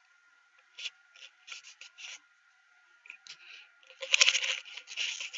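Scattered faint scraping and rustling noises, becoming denser and louder from about four seconds in.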